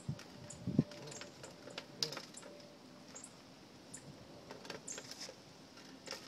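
Irregular light clicks and taps of hands handling a bird feeder while freeing a bird trapped inside it.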